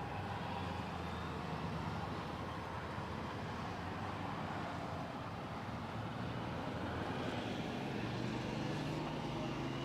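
Street traffic: a steady engine hum from passing vehicles, a little louder in the second half.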